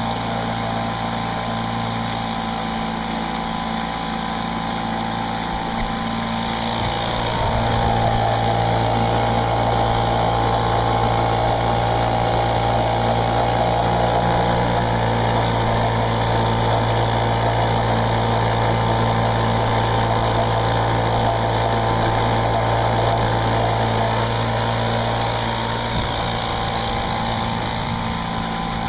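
Small outboard motor on a canoe running steadily under way, with the wash of water along the hull. It grows louder about eight seconds in and eases back a little near the end.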